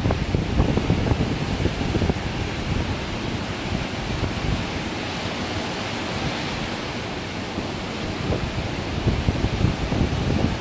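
Rough surf breaking on the shore in high wind, a steady wash of waves with strong wind buffeting the microphone. The buffeting eases in the middle and picks up again near the end.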